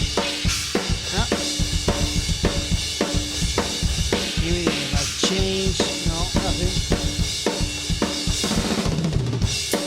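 Playback of a heavy metal mix with a plate reverb on it. The drum kit drives a steady beat of kick and snare hits about twice a second with cymbals, over distorted instruments, and a few sliding notes come about halfway through.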